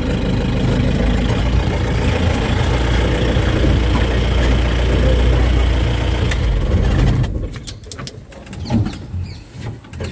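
Vehicle engine idling steadily, then switched off about seven seconds in. After that come only faint scattered clicks.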